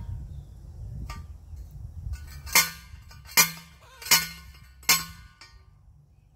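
Four sharp metallic clanks, about three-quarters of a second apart, each ringing briefly, from a steel T-post and wire cattle panel being worked by hand.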